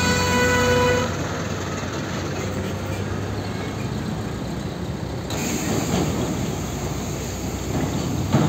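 A horn sounds once, a steady tone of about a second, as a heavy MAN LPG tanker truck passes close by. The truck's diesel engine and tyres then run on as steady traffic rumble while more trucks roll past.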